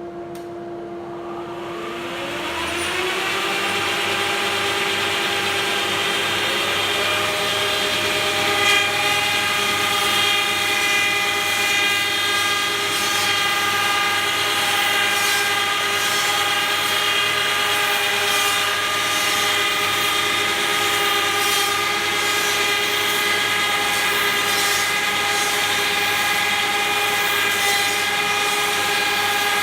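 Cosma SKS 7 copy milling and sanding machine's motors starting up: a whine that climbs in pitch over the first few seconds as it comes up to speed, a second tone rising about six seconds in, then a steady whine of several tones.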